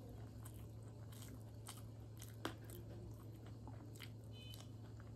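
Faint chewing and small wet mouth clicks of a person eating rice and dal by hand, with one sharper click about two and a half seconds in. A steady low hum runs underneath.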